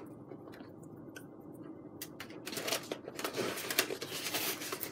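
Foam board scraping and clicking as the glider's canopy and fuselage pieces are handled and pressed together for gluing. There are a few faint clicks at first, then a dense run of scratching from about two seconds in.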